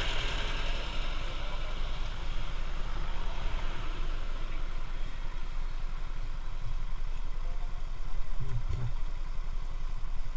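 RCS 125 motorcycle engine running steadily, a low rumble of rapid, even firing pulses.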